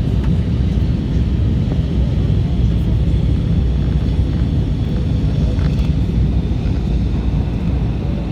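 Airplane noise: a steady, loud, low-pitched sound that holds an even level with no change in pitch.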